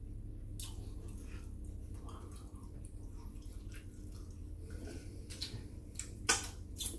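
Wet mouth sounds of a person eating close to the microphone: chewing, lip smacks and small clicks, with a sharper smack about six seconds in and another near the end.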